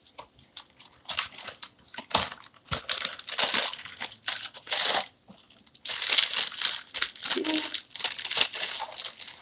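Crinkly plastic inner wrapper of a box of taco shells being torn open and handled: irregular crackling and rustling that comes in bursts with short pauses between them.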